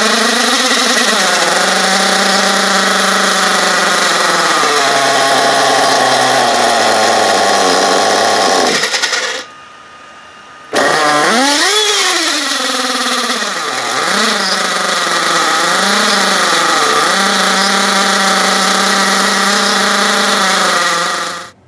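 Team Associated AE Pro .28 nitro engine running on the bench with its pitch wandering up and down, not settling into a steady idle while its carburetor is still being tuned. The sound drops away about nine seconds in and returns a second and a half later, rising in pitch. It runs unevenly again and stops just before the end.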